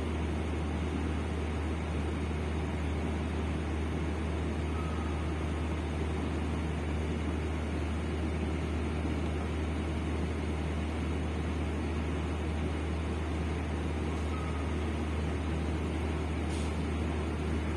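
Steady low diesel drone of the train's engines running with a constant deep hum, unchanging in level. Twice there is a faint short squeak.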